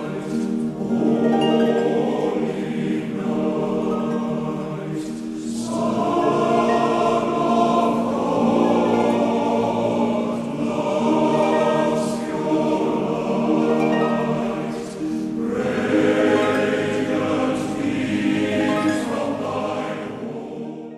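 Choir singing sustained, slow-moving chords with musical accompaniment, fading and stopping at the very end.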